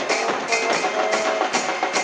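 A supporters' band in the stands: drums beat a fast, even rhythm of about four hits a second, and brass, including a trombone, holds notes over the crowd's noise.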